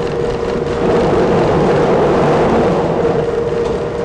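Nanbu Jūkan Railway Kiha 10 railbus running along the line: engine and wheels on the rails, growing louder about a second in and easing again near the end.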